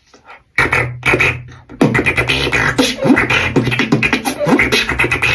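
Beatboxing: a fast rhythm of mouth-made drum sounds over a steady low hum, starting about half a second in.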